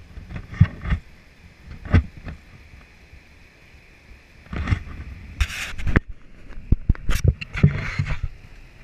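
A canoe knocking and scraping on the wooden rails of a portage ramp as it is hauled by hand: irregular knocks and a few short scrapes, busiest about halfway through and near the end. Behind it is a steady rush of water from a dam.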